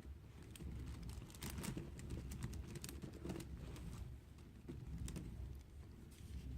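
Faint handling sounds: scattered small clicks and rustling as a fabric strip is poked through and pulled up through a plastic pony-bead kandi hood.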